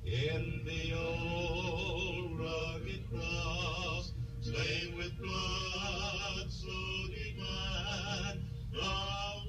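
A man's voice singing in long held phrases with a wavering vibrato, breaking every second or so, over a steady low hum.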